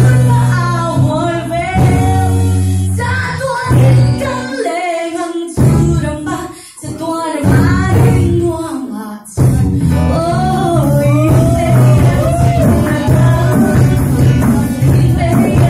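Live band playing a song through a PA, a woman singing lead over guitars and a steady bass line. The accompaniment thins out briefly in the middle, then the full band comes back in sharply about nine seconds in.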